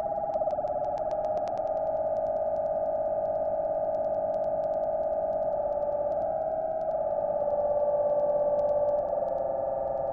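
Electronic drone score: a steady synthesizer tone with a scatter of sharp clicks over it. The tone shifts in pitch about seven seconds in and again about nine seconds in.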